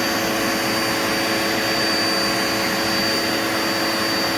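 Dirt Devil Multi Surface upright vacuum cleaner running steadily: a constant motor whine with a high thin whistle over the rush of air.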